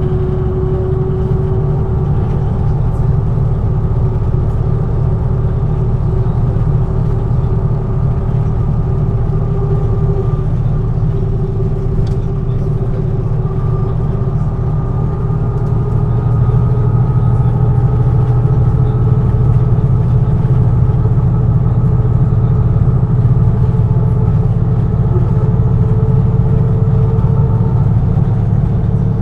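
MAN NG 313 articulated bus's six-cylinder diesel running under way, a steady low engine drone whose pitch drifts slowly with engine speed. It grows a little louder about halfway through.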